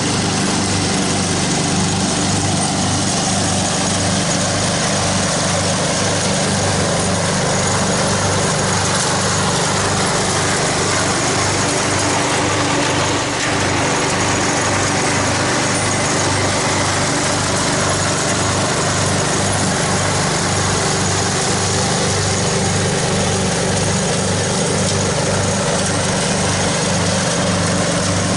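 Craftsman riding lawn mower's engine running steadily with its cutting deck chopping up dry fallen leaves, a constant drone with an even low throb.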